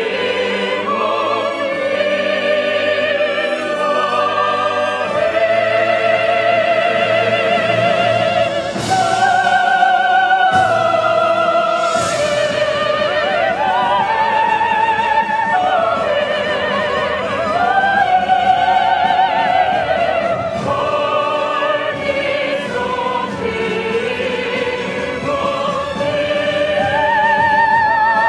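Voices singing a slow song together over instrumental accompaniment, the notes held long with a wide vibrato, with a few bright crashes about a third of the way in.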